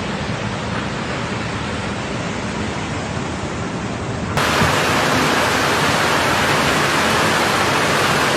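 Steady rushing noise of floodwater. About four seconds in it cuts to a louder, brighter rush.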